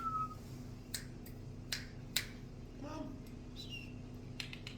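A handful of sharp, isolated clicks spaced irregularly, with a cluster of quicker clicks near the end. A faint short chirp comes about three seconds in.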